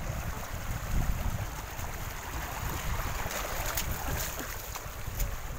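Wind buffeting the microphone as a steady, uneven rumble, with a few faint clicks in the second half.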